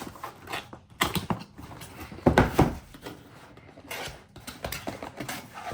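Cardboard box and packaging being handled and opened: a string of rustles and sharp knocks, loudest a little past two seconds in.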